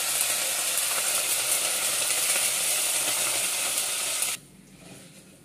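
Hot oil sizzling in a clay pot as a chutney tempering of dals, garlic, dried red chillies and just-added curry leaves fries, stirred with a wooden spatula. The sizzling stops suddenly a little after four seconds in.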